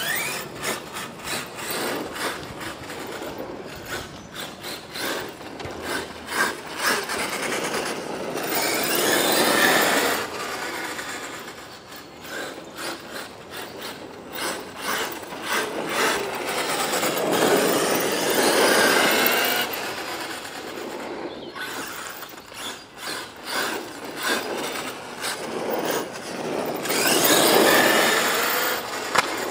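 Electric RC monster truck with a 2350 kV brushless motor being driven over rough ground: a gritty, scratchy tyre noise with many small clicks. It swells three times, about a third of the way in, past the middle and near the end, with a gliding motor whine as it speeds up.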